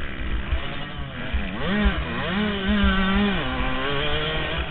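Yamaha YZ125's two-stroke single-cylinder engine revving as the rider works the throttle on a motocross track. Its pitch dips and rises a couple of times, holds high for about a second, then falls to a lower note near the end, with wind rumbling on the helmet-mounted microphone.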